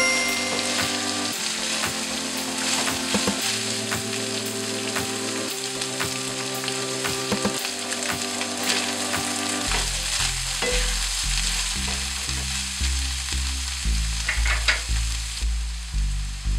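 Minced beef with onions and peppers sizzling in a frying pan, with the scrape and tap of a wooden spoon stirring it. Background music runs under it, with held chords and a pulsing bass beat coming in about ten seconds in.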